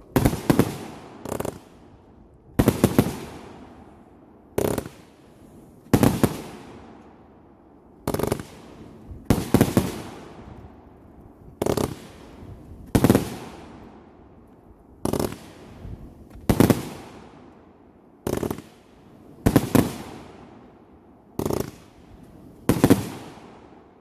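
Fireworks going off in a steady series of loud bangs, about one every second or two. Each bang has a fading, echoing tail.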